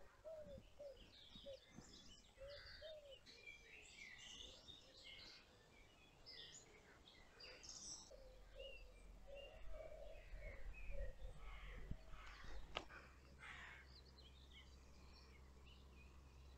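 Faint birdsong outdoors: several birds chirping and trilling, with a lower call repeated in short notes, and a low rumble joining about halfway through.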